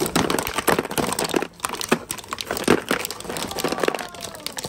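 Ice cubes being twisted out of a plastic ice-cube tray, cracking free and clattering onto a plastic tray among other cubes, in a rapid irregular run of sharp clicks, cracks and knocks.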